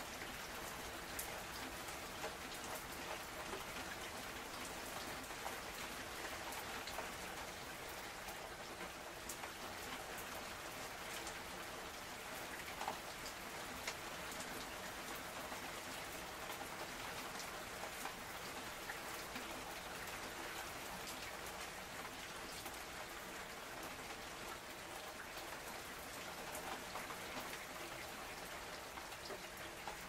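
Steady rain falling, with many individual drops heard as small scattered ticks.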